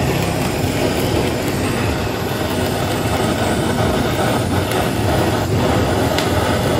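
Handheld butane canister torch burning with a steady rushing noise as its flame sears food on a wire rack.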